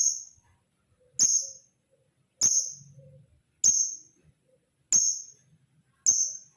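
Male lovebird giving sharp, high-pitched chirps, six in a row at an even pace of about one every 1.2 seconds, each short with a quick fade.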